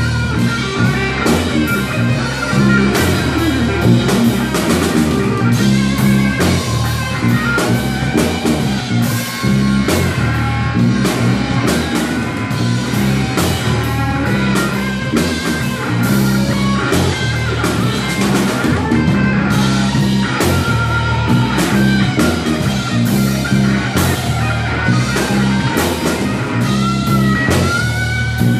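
Live blues-rock trio playing an instrumental passage: amplified electric guitar with bending notes over bass guitar and a drum kit keeping a steady beat.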